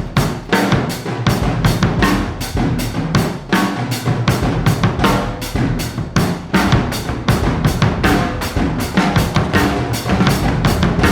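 Background music with a fast, steady drum beat: kick and snare over a bass line.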